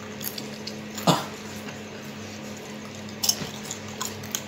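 Lay's potato chips crunching and rattling against ceramic bowls as they are picked up and eaten, one person taking them with his mouth: a few scattered crisp clicks and crunches, with a short voice-like sound about a second in. A steady low hum runs underneath.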